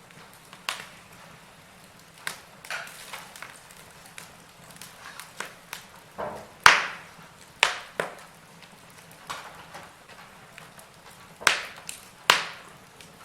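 Wood fire of burning logs crackling, with irregular sharp pops and snaps over a faint steady hiss. The loudest pops come about halfway through and twice near the end.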